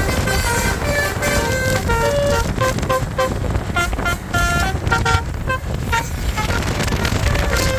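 Basuri telolet multi-tone bus horn playing a fast melody of short toots that change pitch several times a second, over a steady low rumble of engine and road noise.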